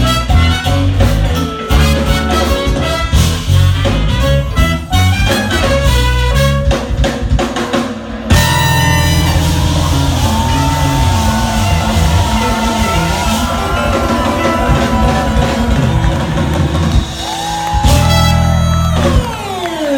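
Live jazz-fusion band playing with drums, bass, keyboards and horns: a busy rhythmic passage for about eight seconds, then the drum hits stop and the band holds a long sustained chord over steady bass. Near the end a tone slides down in pitch.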